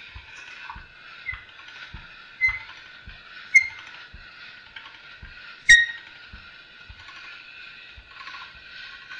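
All-metal hand-cranked pasta machine rolling a sheet of egg dough: a steady whir from the rollers and gears, with a soft knock about twice a second as the crank turns. There are a few sharper metallic clicks, the loudest about two-thirds of the way in.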